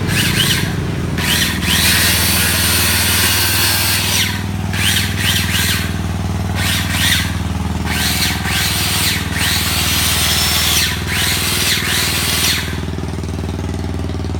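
Ryobi 100 V electric saw running and cutting through wood in a series of cuts lasting a second or two each, with a squeal as the blade bites. Under the cuts the saw motor hums steadily. The cutting stops near the end.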